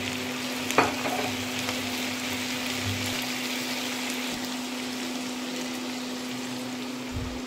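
Onion, capsicum, tomato and chilli sizzling in hot oil in a non-stick wok as they are stirred with a wooden spatula. A single sharp knock sounds about a second in.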